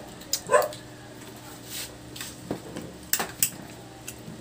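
Metal spoons and forks clinking and scraping on stainless-steel divided plates during a meal, a handful of separate short clinks.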